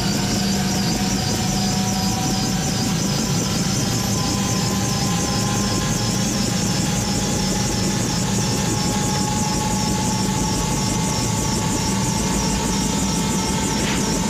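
Helicopter running, its turbine whine rising slowly in pitch as the engine spools up, with an evenly repeating beat from the rotor over a steady rumble.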